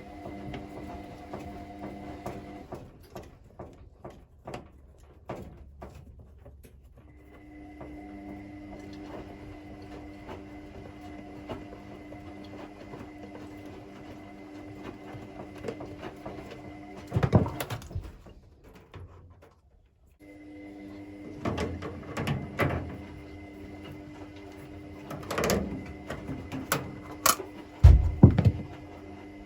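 Clattering knocks and clicks from hands working on a washing machine's parts, loudest in bursts in the second half. Under them runs a steady hum with several fixed tones, which stops twice.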